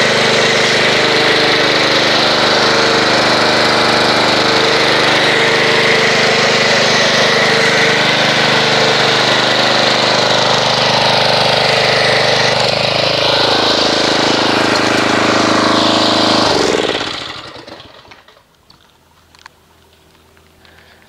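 Pressure washer running a foam cannon, a steady machine hum with a hiss of spray. About 13 seconds in its pitch slides down, and a few seconds later it shuts off.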